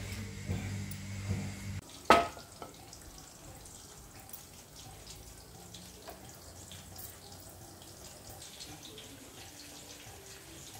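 Handling noise, then a single sharp knock about two seconds in. After that, faint trickling of cooking oil being poured into a nonstick frying pan.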